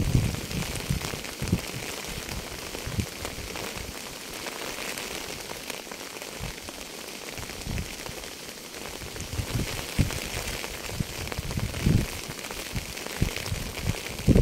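Steady rainfall hiss, with scattered short low thumps of heavier drops landing close by.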